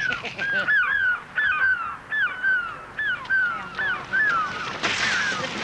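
Birds calling over and over: short, high calls that slide downward, about two a second. A rushing hiss comes in near the end.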